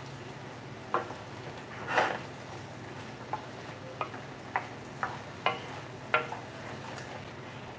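A wooden spoon stirs diced chicken and bell peppers frying in a skillet. A steady sizzle runs under irregular scrapes and knocks of the spoon against the pan, about one a second; the longest and loudest comes about two seconds in.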